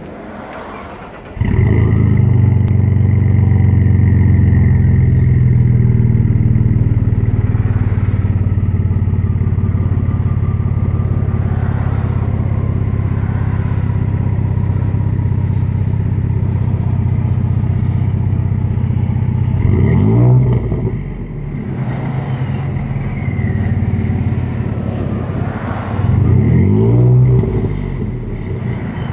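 Ford F-150 3.5L EcoBoost twin-turbo V6 heard at the exhaust tip of a custom 3-inch exhaust with a VR racing one-chamber muffler in place of the stock resonator and muffler. The engine starts about a second in, idles with a deep steady exhaust note that eases down slightly, and is revved briefly twice in the last third.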